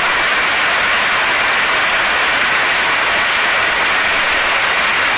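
Large crowd applauding steadily: a dense, even wash of clapping.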